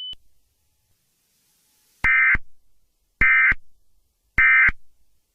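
Emergency Alert System SAME end-of-message tones: three short, harsh electronic data bursts about a second apart, marking the close of the alert. A steady high beep cuts off just at the start.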